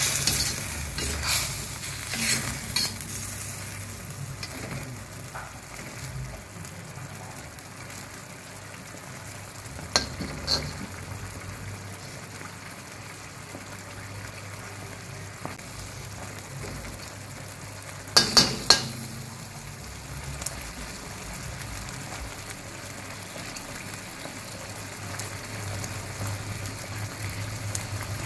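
Sauce sizzling and bubbling in a steel wok, stirred with a perforated metal spatula that scrapes and clinks against the pan. There are clicks in the first few seconds, a couple more about ten seconds in, and three sharp knocks close together around eighteen seconds.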